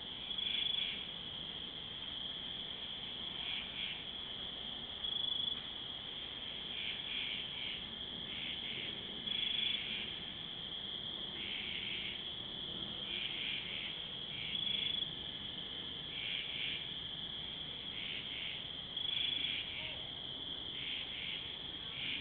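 Night insects, crickets, trilling steadily, with a louder pulsing call standing out about every four to five seconds.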